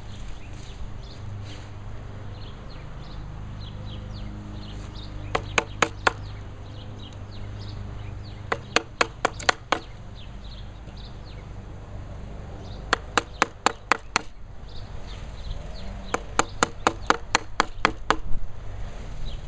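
Wooden mallet striking a timber-framing chisel, chopping out the waste between bored holes in a mortise in a wooden sill. The blows come in four quick runs of sharp knocks, about five a second, with the longest run of about ten blows near the end.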